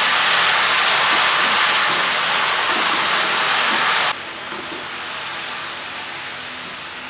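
Sliced oyster mushrooms sizzling in hot oil in a kadhai as they give off their water, with a wooden spatula stirring them. The loud, even sizzle drops abruptly to a softer level about four seconds in.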